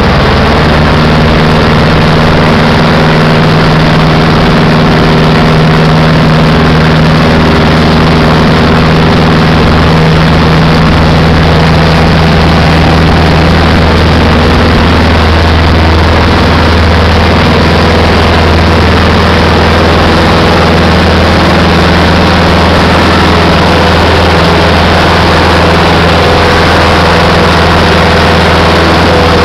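Robin light aircraft's piston engine and propeller running loud and steady at an even pitch, heard from inside the cabin.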